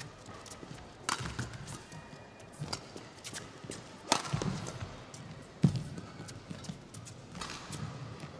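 Badminton rally: rackets strike the shuttlecock with sharp cracks about three times, one of them a jump smash about four seconds in. Players' footfalls thud on the court between the hits.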